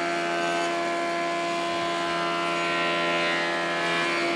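Band saw running with its blade cutting through a thick wooden board: a steady motor hum with the hiss of the blade in the wood.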